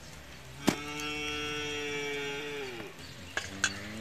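A single long animal call, held steady for about two seconds and dropping in pitch at the end, with a sharp click just before it starts.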